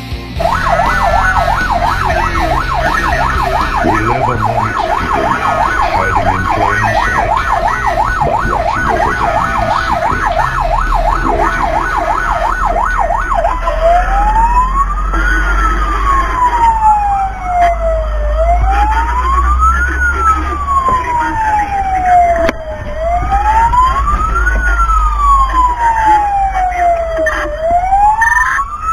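Fire engine's electronic siren, first on a fast yelp of about four cycles a second, then switching about thirteen seconds in to a slow wail that rises and falls about every four and a half seconds. A low vehicle rumble runs under it.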